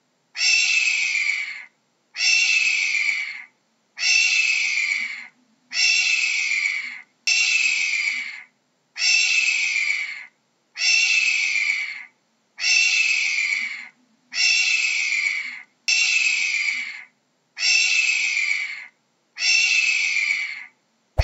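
Hawk giving harsh, hoarse screams over and over, about a dozen in a row, each a little over a second long and dropping slightly in pitch.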